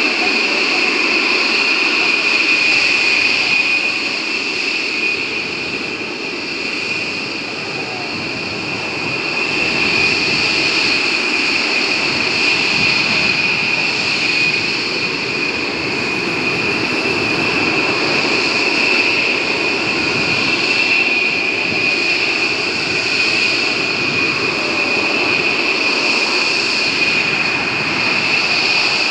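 Boeing B-1B Lancer's four General Electric F101 turbofan jet engines running at low taxi power: a steady rushing jet noise with a strong high-pitched whine, dipping slightly in loudness for a few seconds.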